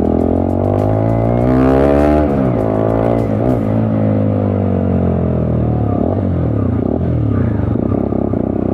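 Bajaj Dominar 250's single-cylinder engine revving through a modified exhaust whose silencer packing has been taken out. The pitch climbs for about two seconds, drops, rises once more, then eases off slowly.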